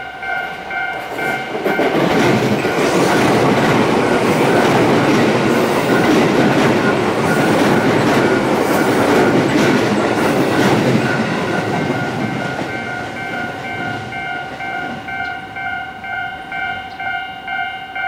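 Japanese level-crossing alarm bell ringing in a steady, evenly repeated ding. An electric commuter train passes for about ten seconds, its wheels clattering over the rails, and drowns out the bell. The train noise fades out near the end, leaving the bell alone.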